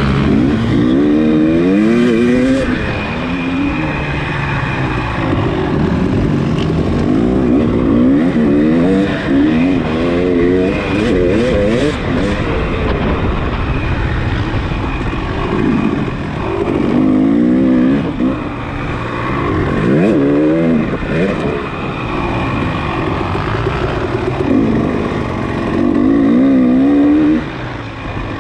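Off-road motorcycle engine racing over rough ground, its pitch climbing and dropping again and again as the throttle opens and closes and the gears change. It briefly drops in level near the end.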